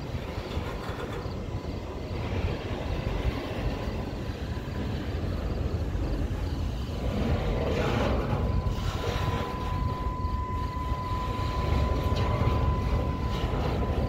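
Double-stack intermodal freight train's well cars rolling past on the rails, a steady low rumble that grows louder, with a thin steady whine setting in about eight seconds in.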